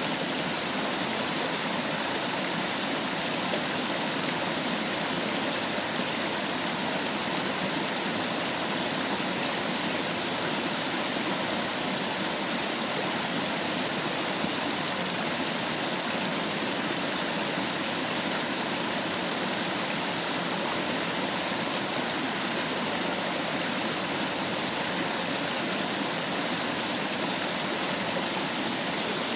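Small waterfall and stream, water rushing and splashing in a steady, even flow.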